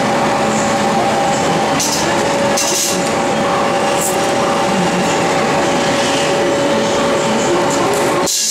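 Steady mechanical drone of a running power press and workshop machinery, a constant hum over a loud noisy bed, with a few brief high-pitched sounds; it drops sharply right at the end.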